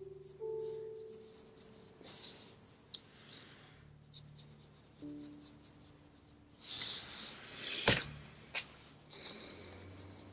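Strokes of a drawing or painting tool scratching and rubbing on smooth paper, irregular and faint, with a louder run of strokes about seven seconds in and a sharp click near eight seconds.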